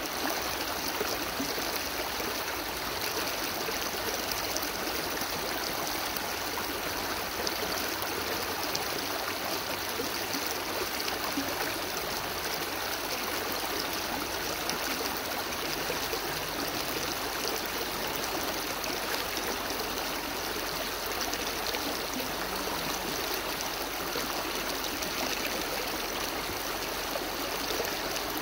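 Shallow rocky creek running steadily, water splashing and gurgling over stones and a fallen branch in a small riffle.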